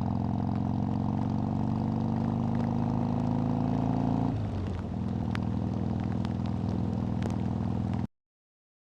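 Harley-Davidson V-twin motorcycle engine running steadily; its note drops about four seconds in, and the sound cuts off abruptly near the end.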